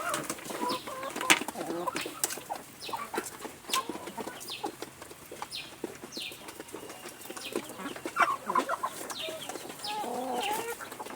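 A flock of chickens clucking, with many short, high, falling peeps from chicks and scattered sharp taps throughout.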